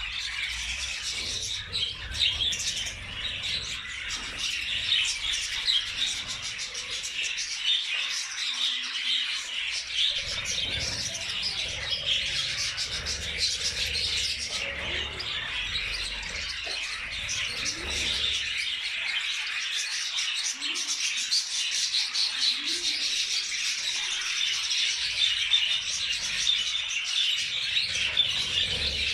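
A colony of budgerigars chattering and warbling continuously, many birds calling at once.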